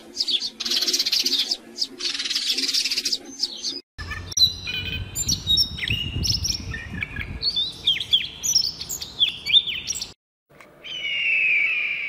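Birds calling in three back-to-back clips. First come harsh, rasping calls in repeated bursts, then many birds chirping with short falling whistles, and near the end a single drawn-out falling call.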